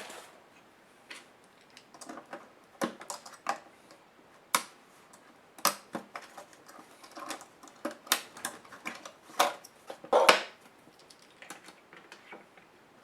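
Irregular clicks and knocks of plastic and small metal parts of a Sony VGN-CR220E laptop being handled and worked apart by hand, with a louder rattling clatter about ten seconds in.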